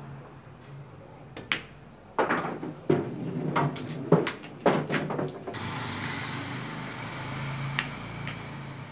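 A cue strikes the cue ball on a pool table with a sharp click, then over about three seconds a run of loud knocks and clatters as the balls collide and rattle against the cushions. A steady hiss follows for the last few seconds.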